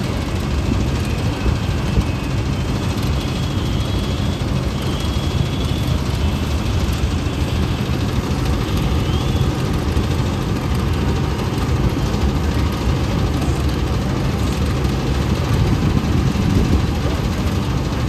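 Balkar 654 combine harvester's engine running steadily with a dense low rumble; a faint steady whine joins about halfway through.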